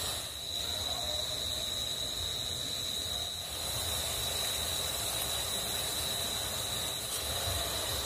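Sugar syrup boiling in an aluminium kadai on a gas stove, a steady hiss and bubbling as the chhena balls for rasmalai go in, with a thin steady high-pitched whine behind it.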